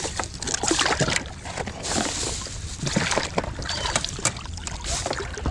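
Irregular splashing and sloshing at the side of an inflatable boat, with sharp knocks, as a caught catfish is held at the surface and put on a stringer.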